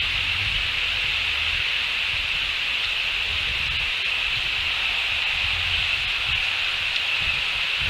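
Steady outdoor ambience picked up by a nest camera's microphone: an even high-pitched hiss or drone over a low rumble of wind on the microphone.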